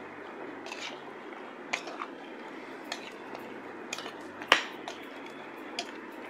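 Raw beef chunks being mixed by hand with yogurt, spice pastes and mustard oil in a steel bowl: wet squelching with scattered sharp clicks, the loudest about four and a half seconds in.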